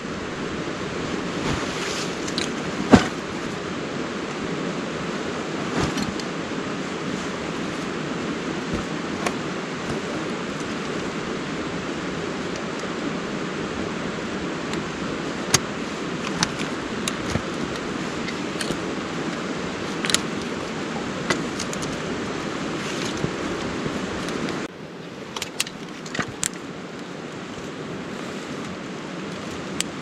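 Steady rushing of a stream running over rocks, with scattered sharp clicks and knocks of stones shifting underfoot and gear being handled, the loudest about three seconds in. The rushing drops suddenly and gets quieter near the end.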